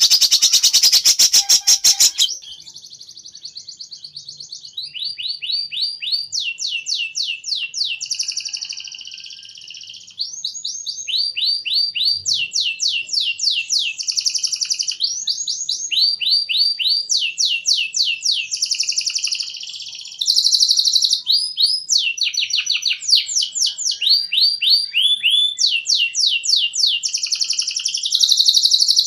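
Recorded songbird song: trains of quick, sharp high notes, repeated in phrases every second or two. A loud, harsh buzzing rattle fills the first two seconds.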